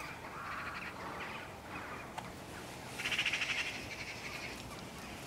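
Farmyard corvids (rooks, jackdaws and magpies) calling faintly, with a rapid rattling chatter about three seconds in.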